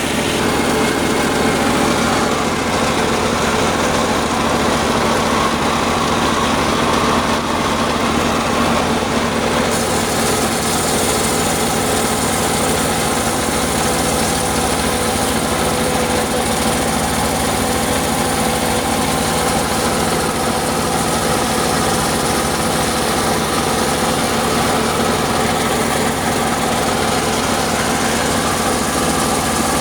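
Circular saw machine (serkel) running steadily: a loud, continuous mechanical drone with an even pitch and no pauses.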